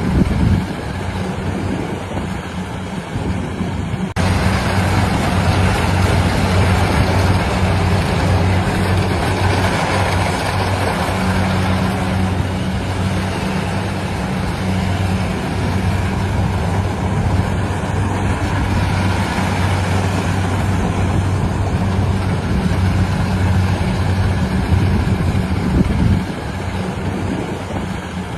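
Engine of a rice-harvesting machine running steadily under load, a low hum under a dense mechanical clatter. It gets louder about four seconds in and drops back near the end.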